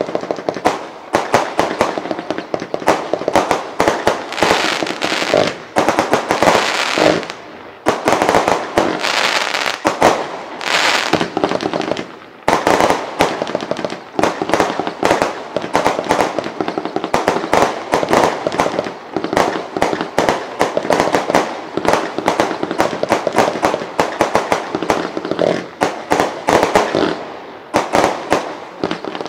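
Lesli 'Vliegende Hollander' firework cake firing shot after shot: a dense, rapid run of bangs and crackling star bursts, with short lulls about seven and twelve seconds in.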